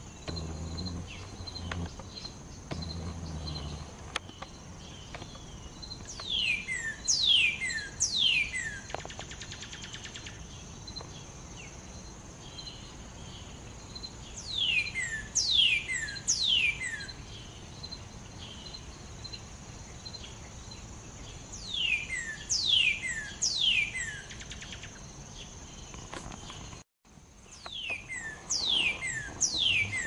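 Northern cardinal singing: four phrases of four or five loud, steeply falling whistles, repeated about every seven or eight seconds. Between them there is a faint steady high buzz.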